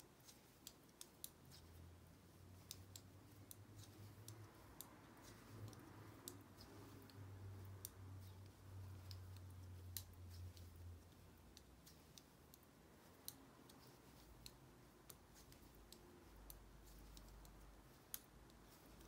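Thick 7 mm circular knitting needles clicking together, faint and irregular, as stitches are worked along a row; a faint low hum runs underneath.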